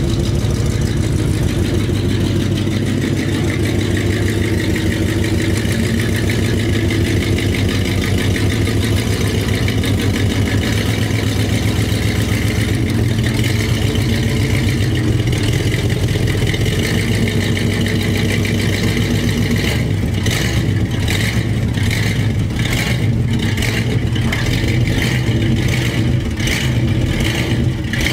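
1978 Chevrolet pickup's engine running at low speed as the truck is maneuvered slowly at close range: a steady, loud, deep exhaust note. A faster rhythmic pulsing stands out above it in the last several seconds.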